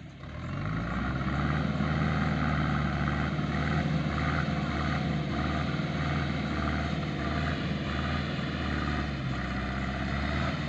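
Farm tractor engine revving up over the first second, then running steadily as the tractor drives along.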